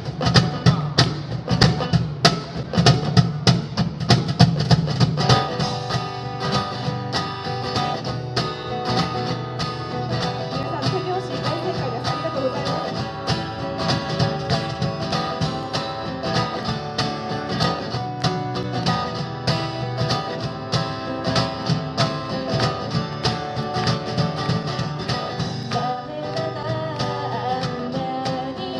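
A song performed live: guitar played to a steady beat, with a singing voice carrying the melody from about five seconds in.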